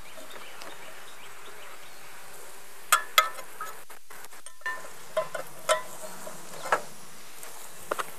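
Steady hum of a package of honey bees, with a run of sharp knocks and clinks as the tin feed can is worked loose and pulled out of the hole in the package's wooden lid; the loudest knocks come about three seconds in.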